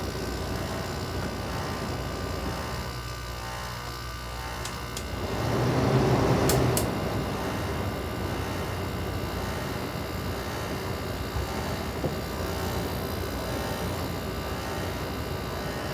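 A 1989 Carrier 5,400 BTU window air conditioner running with a steady hum. About five seconds in, a louder rush swells for a couple of seconds with two sharp clicks near its peak, then settles back to the steady hum.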